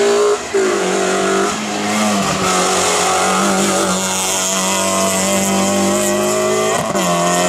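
Rally hatchback's engine revving hard and held high, with a short break and drop in pitch about half a second in and again near the end as the driver changes gear.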